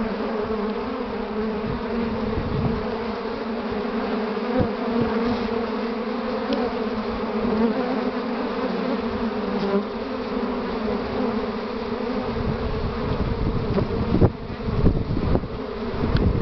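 Dense, steady buzzing of many honeybees at the hive entrance, with foragers flying in laden with willow pollen during a strong early-spring pollen flow. An uneven low rumble joins in during the last few seconds.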